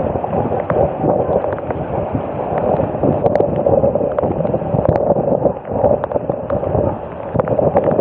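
Constant rough noise of storm wind on the microphone and floodwater sloshing, with scattered knocks and splashes from people wading.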